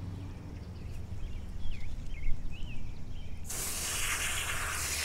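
A sudden steady hiss, like water spraying, starts about three and a half seconds in over a faint low rumble. A few faint high chirps come before it.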